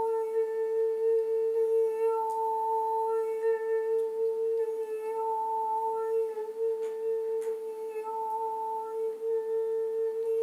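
A woman singing the 'il-lio' healing sound for the spleen as one long note held at a steady pitch.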